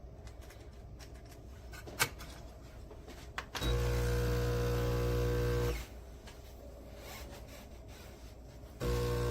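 Neretva espresso machine's pump running with a steady hum for about two seconds, cutting off, then starting again near the end. Two clicks come shortly before the first run.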